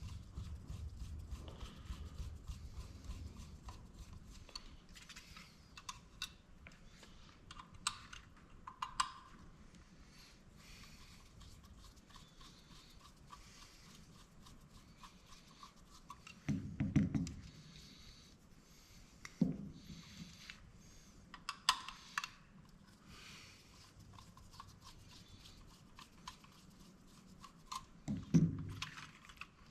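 Scattered small clicks, scrapes and light knocks of small tools and plastic parts being handled as a dome security camera's lens assembly is taken apart. A few duller bumps come around the middle and near the end.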